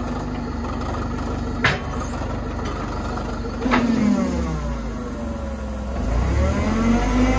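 Caterpillar LPG forklift engine running, with two sharp clicks about two seconds apart; then the revs sag and climb again as the forks raise a heavy load.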